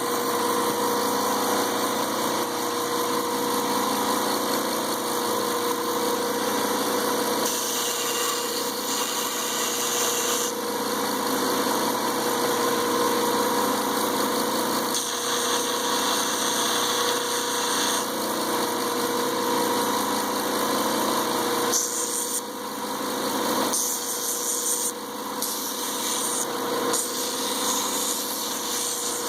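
Homemade 2x72 belt grinder driven by a 1 horsepower electric motor, running steadily with a constant hum and the whir of the belt. A higher hiss swells and fades several times.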